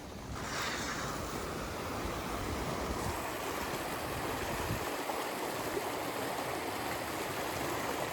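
Flowing water running steadily, a stream-like rush that sets in about half a second in.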